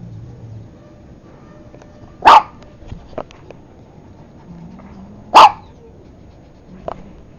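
A dog barking twice, single loud barks about three seconds apart.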